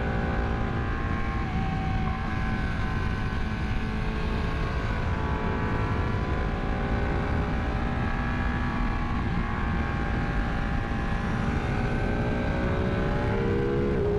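Ducati 959 Panigale's Superquadro V-twin pulling under way, its engine note sinking gently and then climbing again, rising sharply in the last couple of seconds, over wind rush on the microphone.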